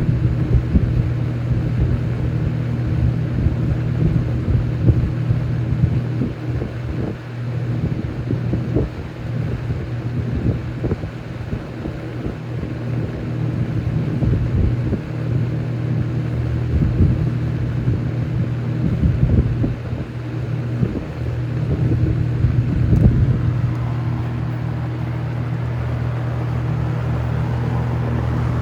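Toastmaster (McGraw-Edison) 20-inch box fan running on its in-house McGraw-Edison motor: a steady motor hum with the rush of its airflow buffeting the microphone in gusts. The buffeting settles near the end, leaving a steadier hum and rush.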